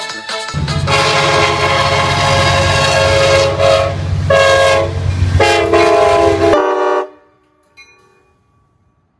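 Metrolink diesel locomotive's air horn sounding three blasts, the first one long, over the low rumble of the passing train. It cuts off about seven seconds in.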